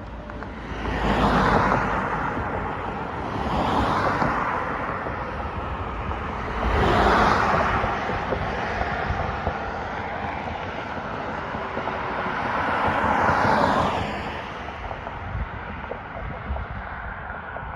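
Road traffic: vehicles passing one after another, each a swell of tyre and engine noise that rises and fades, four passes in all.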